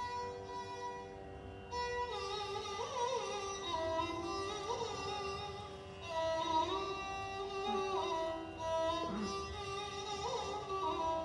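Music: a melody on a string instrument, with sliding ornaments, over a steady drone, in an Indian classical style.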